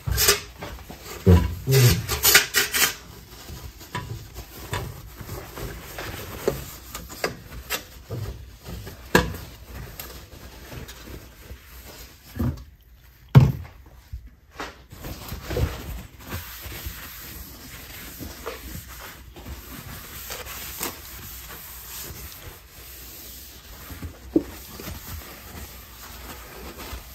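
Kitchen cleaning: a paper towel rubbing and wiping over a countertop, with scattered knocks and clatter of items being picked up and set down. A cluster of louder knocks comes in the first few seconds, and a single sharp knock comes about halfway.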